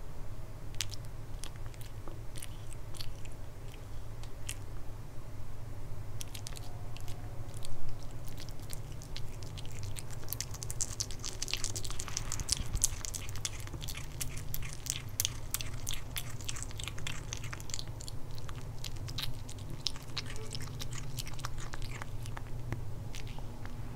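Kitten chewing and biting raw pork, a steady run of small wet clicks and smacks that is densest in the middle. A single louder bump comes about eight seconds in, over a steady low hum.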